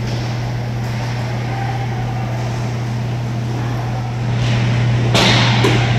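Inline hockey game sounds in an indoor rink: a steady low hum under the noise of skates and sticks on the plastic floor, with a sudden loud clatter about five seconds in.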